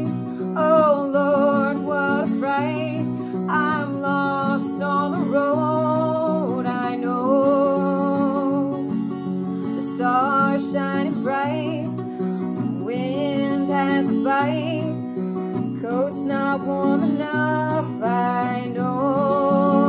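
A woman singing with an acoustic guitar accompaniment, her voice wavering over steadily changing guitar chords.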